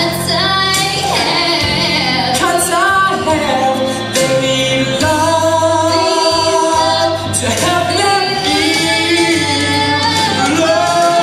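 A stage musical number: singing over backing music with a steady bass line.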